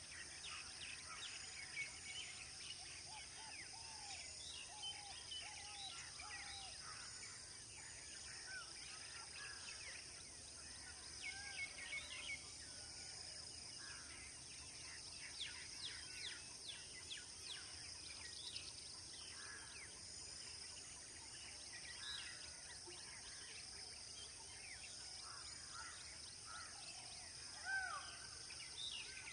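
Birds chirping and calling in many short, quick notes over a steady high insect drone, with a louder call near the end.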